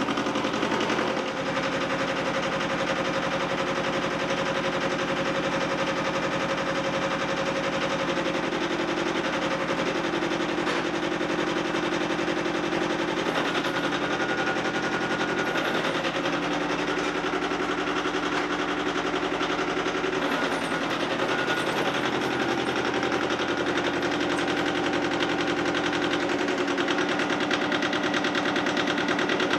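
Yanmar YM155D tractor's small two-cylinder diesel engine running with a fast, even firing rhythm while the tractor is driven on its newly replaced clutch. The engine speed shifts several times.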